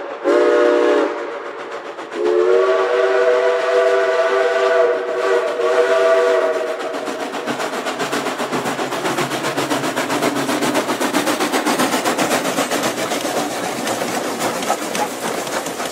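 Doubleheaded steam locomotives, Southern Railway 2-8-0 No. 630 and 2-8-2 No. 4501, hauling a freight train: a steam whistle gives one short blast, then a long chord-like blast about two seconds in. After that the exhausts chuff rapidly and loudly as the engines work past.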